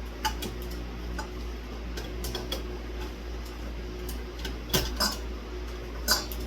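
Small metal parts of a ceiling fan's hardware clinking and clicking as they are handled, in scattered knocks with two louder clacks in the second half, over a steady low hum.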